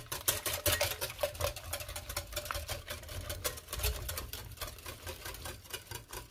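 Hand wire whisk beating a runny yogurt, egg and baking-soda batter in a glass bowl: fast, rhythmic clicking of the wires against the glass.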